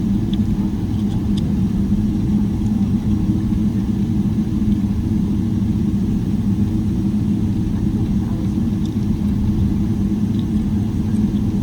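Cabin noise of a Boeing 777-300ER heard from a window seat: the GE90 engines and the airframe make a steady, even low rumble that holds at one level throughout.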